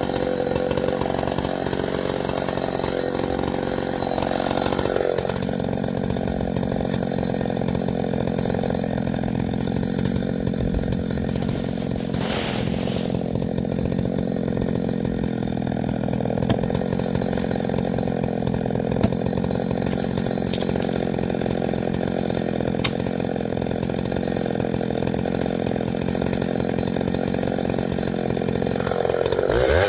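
Vintage Husqvarna L65 two-stroke chainsaw running steadily at speed, with a brief dip in pitch about five seconds in.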